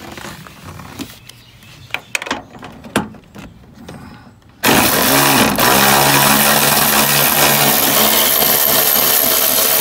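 A cordless electric ratchet's motor spinning at a steady speed for about six seconds, starting suddenly about halfway through, after a few light clicks of the tool being handled.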